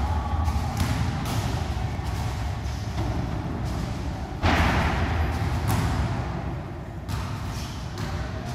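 Boxing sparring: scattered thuds and slaps of gloved punches and footwork on the ring canvas over a steady low rumble, with a louder burst about halfway through.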